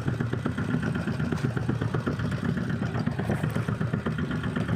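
Fishing boat's engine running steadily at a low, even pace with a rapid pulsing beat.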